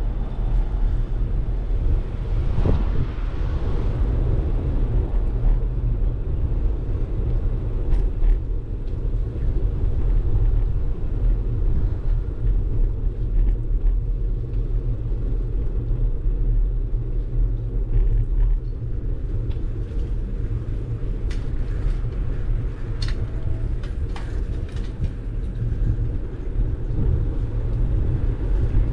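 Bicycle riding along a rough asphalt lane, heard from a GoPro mounted on it: a steady low rumble of wind on the microphone and tyres on the road, with a few short clicks.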